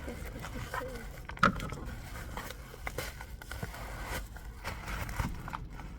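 Parcel packaging being handled and opened by hand: rustling, crinkling and scraping with scattered small clicks, and one sharp snap about a second and a half in.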